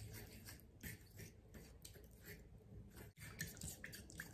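Metal spoon beating a thin sauce in a ceramic bowl: faint, irregular clicks against the bowl and soft wet stirring.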